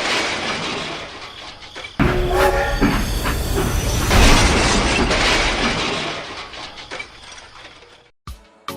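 Train running with a rumble, a horn sounding briefly about two seconds in; the rumble fades away near the end.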